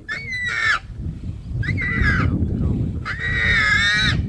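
Warthog screaming while pinned by a leopard: three high squeals, the last the longest, over a low rough rumble.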